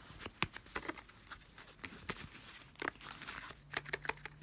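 Cardboard and paper packaging of a Fitbit Charge 2 box being handled: an irregular run of short scrapes, taps and rustles as the box insert and flaps are moved.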